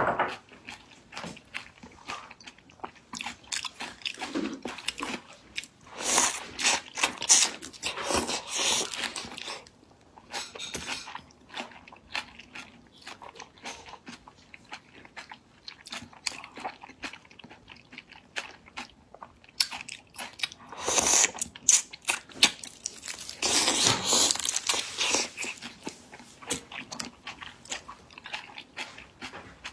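Close-miked biting and chewing of raw marinated shrimp: wet crunching, smacking and clicking mouth sounds, with two louder stretches of crunching, one about a fifth of the way in and one past two-thirds.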